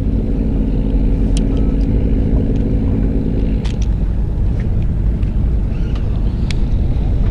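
Boat engine running with a steady low rumble; a droning hum over it cuts off about three and a half seconds in, and there are a few sharp clicks.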